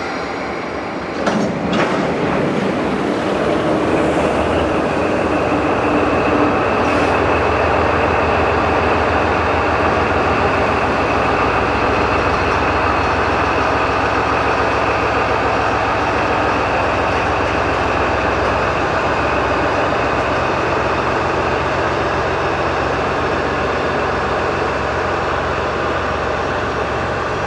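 KD55 103 diesel locomotive running under load as it pulls a freight train of tank wagons away, the wagons' wheels rolling over the rails. Two sharp knocks come in the first two seconds.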